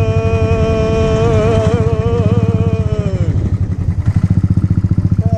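Bajaj Pulsar NS200's single-cylinder engine running with an even, pulsing beat. For the first three seconds a held, wavering tone lies over it, then drops away.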